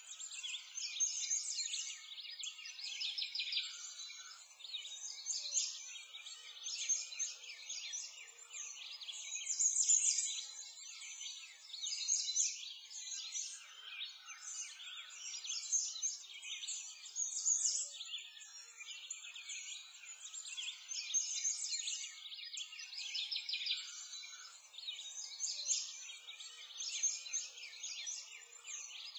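A dense chorus of small songbirds, many high chirps and trills overlapping, swelling and fading every two seconds or so.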